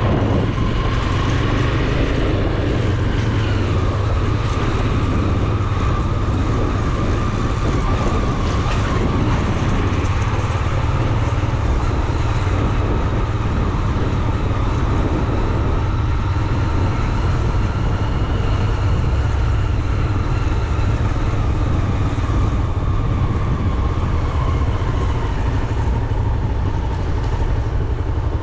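Vehicle on the move: a steady, heavy engine and road rumble with a thin whine that rises slightly a few seconds in and eases off near the end.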